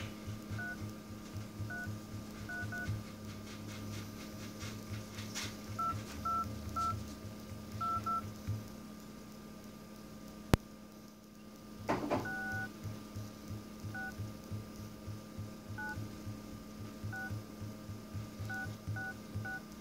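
HTC Desire 626 dialer keypad tones: short two-tone beeps, one per key tap, coming irregularly, singly and in quick runs, with a gap of a few seconds near the middle and one longer beep after it. A single sharp click falls just before the gap ends.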